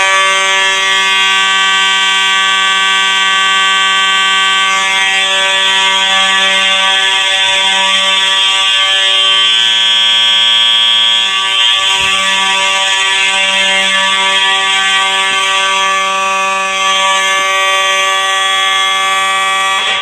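Two white Simplex 4903-series horn strobes, one electromechanical (4903-9221) and one electronic (4903-9242), sounding together in a loud, steady, unbroken horn tone on the fire alarm panel's filtered DC output. The sound starts abruptly as the alarm trips and stops abruptly at the end.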